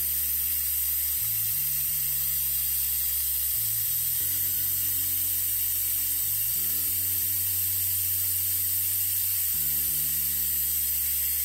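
A steady high air hiss, typical of a compressed-air vacuum brake bleeder running on the caliper's open bleeder, with background music under it. Both start and stop together, abruptly.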